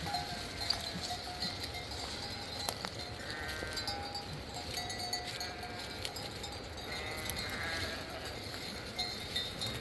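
Livestock bleating in the distance: a few faint, wavering calls about three seconds in and again near seven seconds, over a steady hiss.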